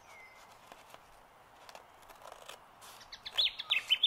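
A few faint scissor snips through folded paper, then about three seconds in a bird starts a rapid run of loud, short, falling chirps, about six a second.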